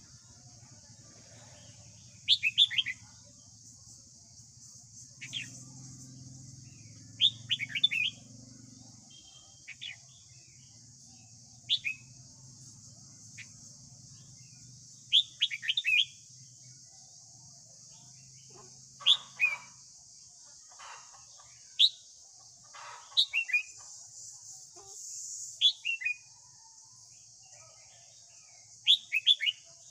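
Red-whiskered bulbul singing short, loud phrases of quick rising and falling whistled notes, about a dozen phrases a few seconds apart.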